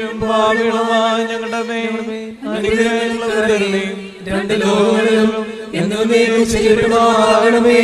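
A solo voice chanting a slow Syriac Orthodox liturgical melody in three long, held phrases, with short breaks between them.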